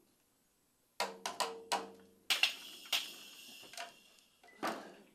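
Toy drum set struck with drumsticks by a toddler in an uneven, unpracticed rhythm: a few quick hits about a second in, then louder hits, one ringing on for over a second, and another hit near the end.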